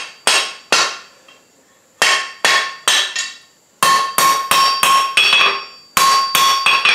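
Hand hammer striking a red-hot bar on a steel anvil, knocking the sharp corners off. Each blow rings briefly. There are two blows, a pause of about a second, then quick runs of blows at about four or five a second.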